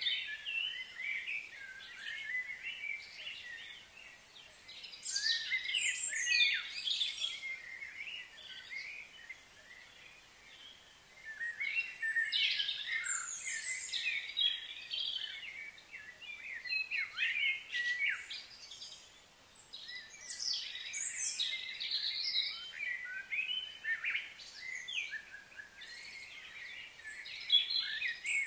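Birds chirping and singing in many short, high, overlapping calls and trills, with quieter lulls about a third of the way in and again about two thirds in.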